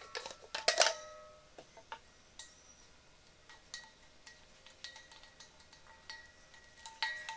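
Red plastic protective cap pulled off a steel LPG gas cylinder, with sharp plastic clicks at the start and about a second in, then lighter clicks and taps as the green seal cap is worked off the valve. Several of the taps leave a short metallic ring.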